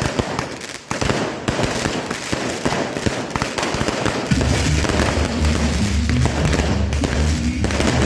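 Fireworks crackling in a dense, rapid run of sharp pops. About four seconds in, bass-heavy music starts up underneath and keeps going.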